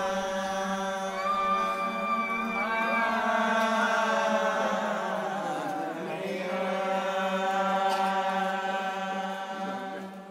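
Chanted singing with long held notes and a few sliding passages, fading out near the end.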